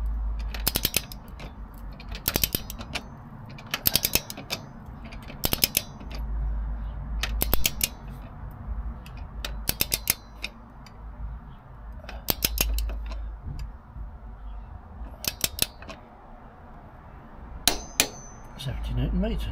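Ratcheting torque wrench tightening a motorcycle's rear axle nut towards 70 Nm: short bursts of ratchet clicking every second or two as the handle is pulled and swung back, with a sharper ringing click near the end.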